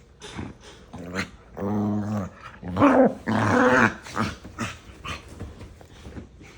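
Two small dogs growling and yapping at each other in a mock argument, with two drawn-out growling vocalizations in the middle that are the loudest part, among short yips before and after.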